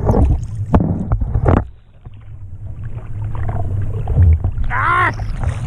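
Lake water splashing and sloshing against a handheld action camera held by a person in the water. The sound dips briefly about two seconds in, and a short warbling sound comes about five seconds in.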